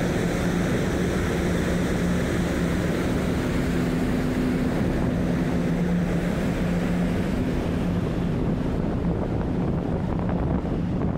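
Steady low hum of a berthed car ferry's onboard machinery heard on the open deck, with wind buffeting the microphone.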